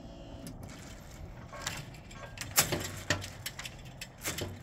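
Level crossing barrier boom rising, giving a series of sharp clicks and clunks, the loudest about two and a half seconds in.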